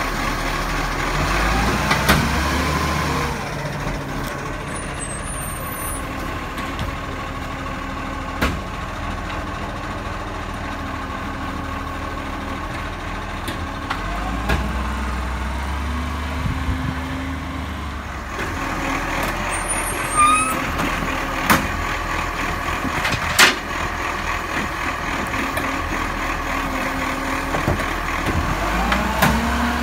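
Side-loading garbage truck's engine running as it works between kerbside bins, rising in pitch three times as the truck pulls away and the automatic arm lifts bins. A few sharp knocks and clacks come in between.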